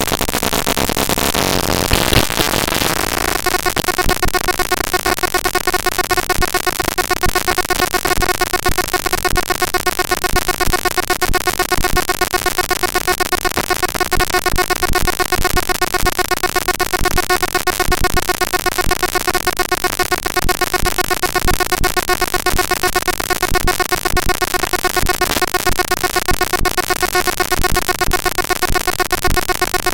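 Network packet-capture text from tshark played directly as raw audio samples, giving a loud, harsh digital noise. About three seconds in it settles into a steady buzzing drone with many even overtones and a fast flutter.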